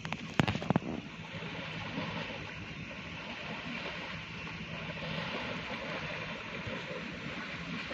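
Water splashing and sloshing as an elephant wades through a shallow river, over a steady wash of wind on the microphone. A few sharp knocks come about half a second in.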